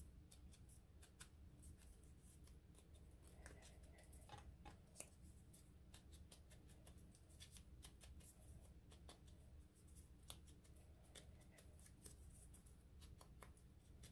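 Faint, scattered small clicks and taps of hands working paper and card, barely above room hum.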